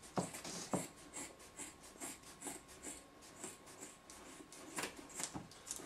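Scissors snipping through two doubled-over legs of denim jeans at once: a run of short cuts, about two or three a second.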